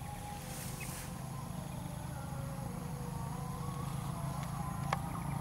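A steady low mechanical hum, like a motor running, that slowly grows louder, with a few faint clicks near the end.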